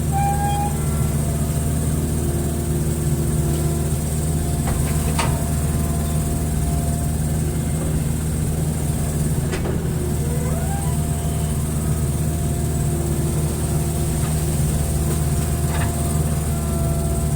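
Hitachi excavator's diesel engine running steadily, with a higher hydraulic whine coming and going over it. Three short sharp knocks stand out.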